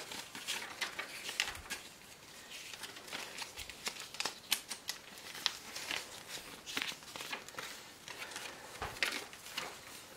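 Paper instruction booklet pages being flipped and handled: a quiet run of irregular short paper flicks and rustles.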